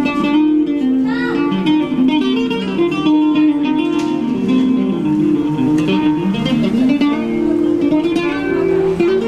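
Acoustic guitar played by a busker, picking a steady run of single-note melody lines.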